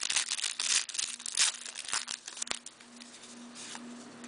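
Plastic wrapper of an O-Pee-Chee hockey card pack being torn open and crinkled by hand, crackling densely for about two and a half seconds, then going quieter.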